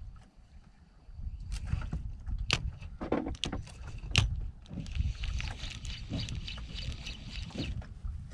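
Sea water lapping against a small wooden boat's hull under a steady low rumble, with several sharp knocks in the first half and a few seconds of fine rattling hiss in the second half.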